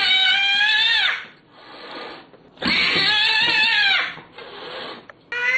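Cat yowling: long, drawn-out meows about a second each, two in full with a third starting near the end, and fainter cries between them.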